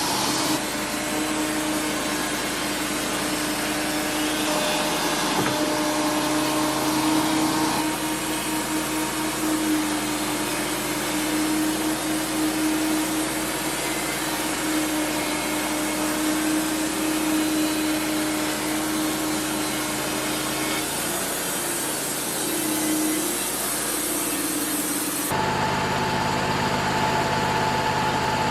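Wood-Mizer LT35 portable band sawmill cutting through cedar, its blade and engine running steadily under load. About 25 seconds in the cutting noise stops and the engine runs on alone at a steady hum.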